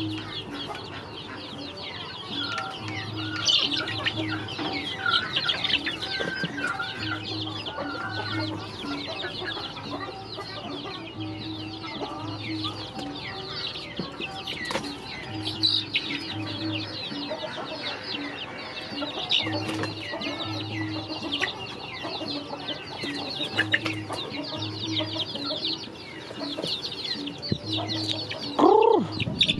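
A flock of young chickens chirping and clucking as they peck at food in a woven basket, with scattered pecking clicks. Near the end two loud drawn-out calls rise and fall.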